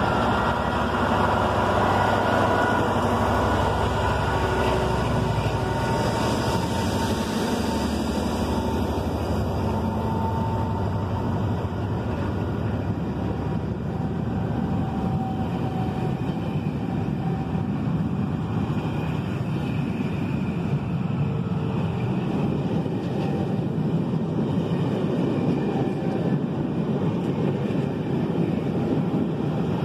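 GBRf Class 66 diesel locomotive's two-stroke V12 engine working as the train pulls away past, its low drone fading over the first several seconds. After that comes the steady rolling noise of the passenger coaches' wheels on the rails as they go by.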